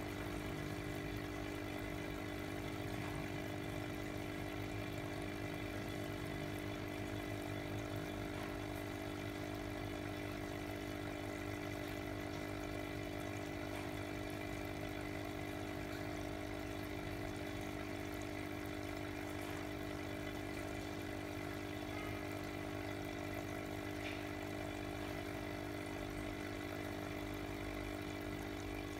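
Small electric aquarium pump humming steadily, with air bubbling through the water of a goldfish bowl.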